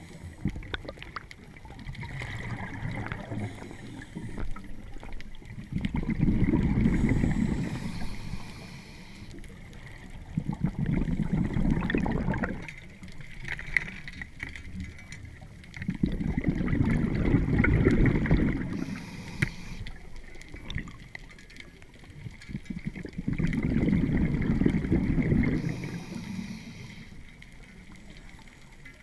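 Scuba diver breathing through a regulator underwater. Each exhalation is a low rumble of bubbles lasting two to three seconds, four in all, with a short hiss of inhaling between them.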